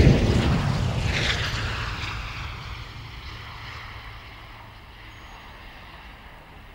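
Yakovlev Yak-141 jet rushing past close by on its landing roll, loudest at the start. The noise then fades over a few seconds to a low rumble as the aircraft rolls away, slowing under its drag chute.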